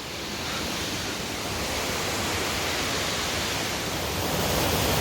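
Steady rush of a waterfall's falling water, growing gradually louder.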